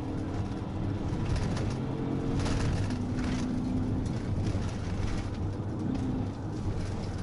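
Police cruiser driving fast on an unpaved road, heard from inside the car: a steady engine hum under rough tyre and road noise, with a couple of short rattling hits about two and a half and three seconds in.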